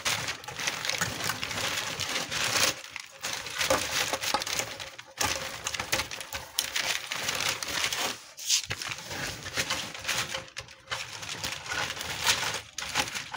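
Folded plastic net being spread out over a silkworm rearing tray, with irregular crinkling and rustling of the plastic as it is handled.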